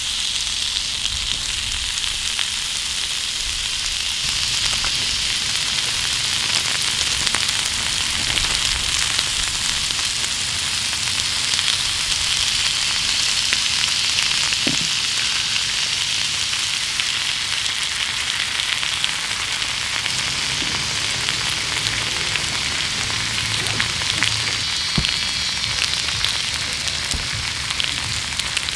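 Slices of pork belly sizzling steadily in a ridged cast-iron grill pan, the fat frying in an even hiss.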